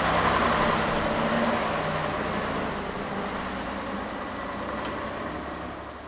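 1962 AEC Mammoth Major eight-wheel lorry's diesel engine running as the lorry drives past and pulls away, loudest at first and fading steadily as it goes.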